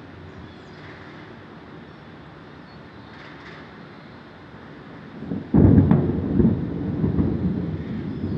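Thunder: a sudden loud crack about five and a half seconds in, rolling on into a long low rumble, over a steady low background hum.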